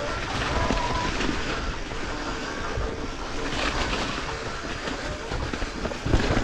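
Wind rushing over the microphone and a mountain bike rattling and thudding over a rough trail at speed, with a heavier jolt about six seconds in.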